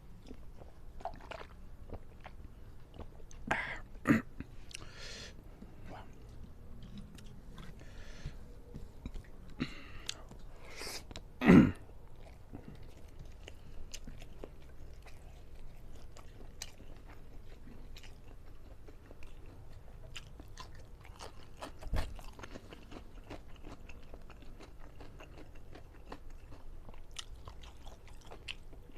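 Close-up eating sounds: chewing and biting, wet mouth noises and small crunches, with a few louder short sounds near 4 s, 11 s and 22 s.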